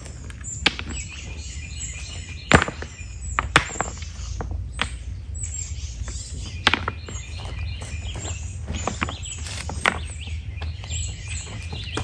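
Loose stones knocking and clinking against each other as they are set by hand into a rock-lined creek bed, with several sharp knocks, the loudest about two and a half seconds in. Birds chirp throughout.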